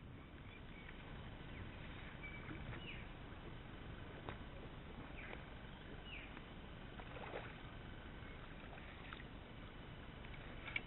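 Water lapping against a Hobie Revolution kayak hull over a steady hiss. Short, high, falling chirps recur every second or two, and a sharp click comes near the end.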